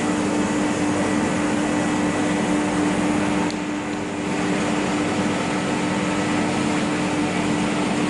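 Univac industrial vacuum loader truck running its vacuum system: a loud, steady mechanical drone with a constant hum through it.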